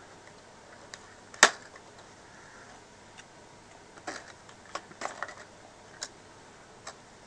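Hard plastic clicking and knocking as a Bugs 4W hobby drone is handled: one sharp loud click about a second and a half in, then a cluster of smaller clicks later on and a couple of single ones near the end.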